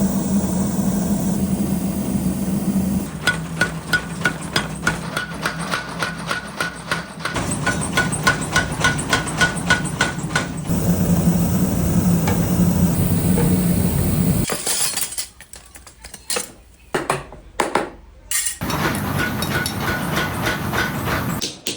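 Hammer blows on steel at a blacksmith's forge: runs of quick, evenly spaced strikes, each leaving a short metallic ring. Between the runs there is a steady mechanical hum.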